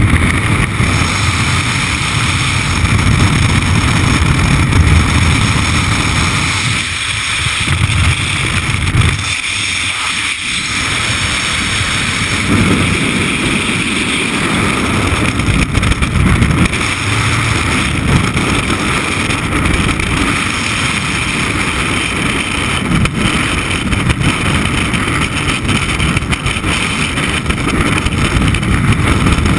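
Loud, steady rush of freefall wind buffeting a camera microphone during a skydive, easing briefly twice, around 7 and 10 seconds in.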